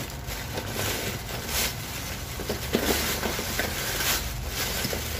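Orange plastic carrier bag crinkling as hands rummage through loose salvaged electronic parts (thermistors, switches, wires), with small clicks of the parts knocking together.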